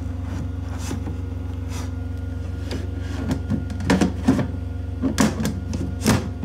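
Steady low hum of the boat's running machinery. A series of knocks and rustles from handling inside the drawer cabinet comes about three to six seconds in.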